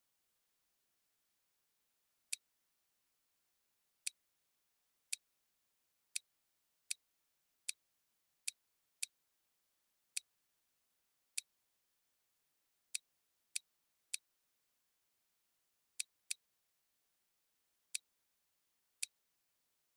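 Seventeen short, sharp computer clicks at uneven intervals, with dead silence between them, as the on-screen controls of a LEGO building program are clicked through.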